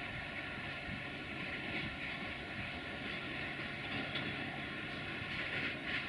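Duewag class 628 diesel multiple unit's diesel engine running as it rolls slowly toward the listener: a steady drone with a rushing noise above it, slightly louder near the end.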